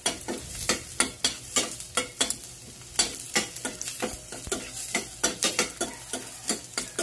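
Diced white onion sautéing in hot oil in a stainless steel pan, a low sizzle under a metal spoon stirring it, with repeated sharp scrapes and clinks against the pan, two or three a second.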